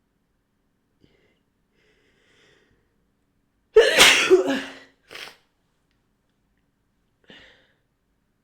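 A woman's induced sneeze, one loud sudden sneeze about four seconds in after a few faint breaths. Two short, quieter sounds follow.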